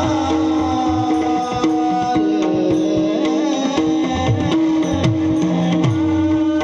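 Mridang (pakhawaj) drumming in a fast run of strokes in devotional music, over a steady held drone and a wavering melody line.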